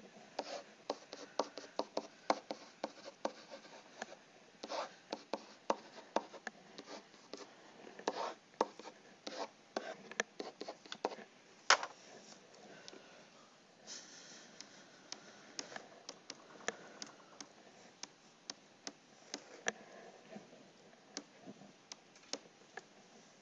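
Light, irregular taps and scratches of a stylus writing on a tablet surface, with a sharper tap about halfway through and a short rubbing scrape just after it.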